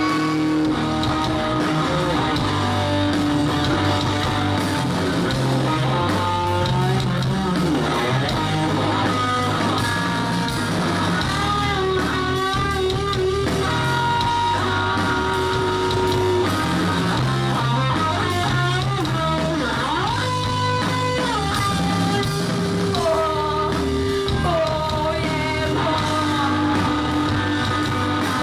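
Rock song with electric guitar, bass, drums and a singing voice, at a steady level.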